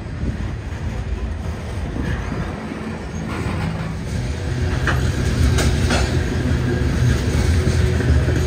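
Freight train of covered hopper cars rolling past: a steady low rumble of wheels on rail with a few sharp clanks, growing louder about halfway through.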